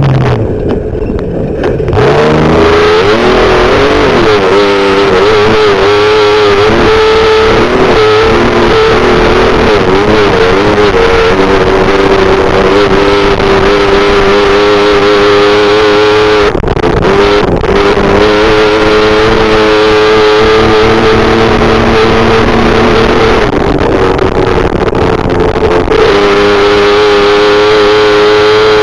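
Class 7 desert race truck's engine running hard, its pitch wavering up and down with the throttle. It eases off briefly right at the start.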